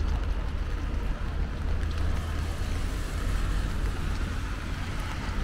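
Steady rain ambience over a constant low rumble.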